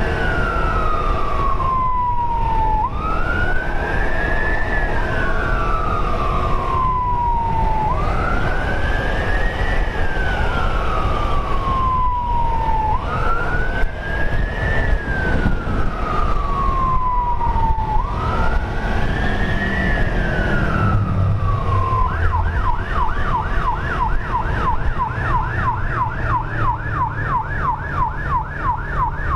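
Emergency siren wailing in slow sweeps, each rising and then sliding back down, about five seconds apart. About two-thirds of the way through it switches to a fast yelp. Under it runs the steady rumble of a motorcycle engine and wind.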